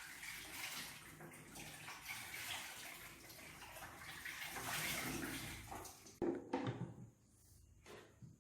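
Faint wet sloshing of a liquid being poured or mixed, then a few sharp knocks about six seconds in.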